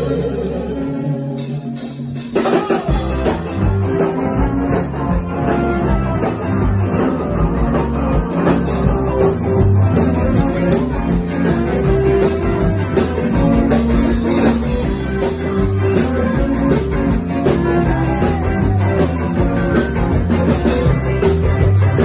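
Live rock band playing on stage, heard through the phone's microphone: a thin guitar-led passage for the first two seconds, then drums and the full band come in together and play on with a steady beat.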